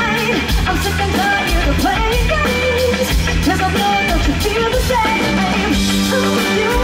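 Live amplified pop-rock band: a woman singing lead into a microphone over a drum kit and electric guitar.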